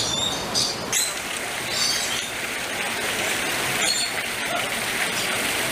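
Parrots in an aviary calling in short, high chirps, several in the first second and a few more later, over a steady hiss.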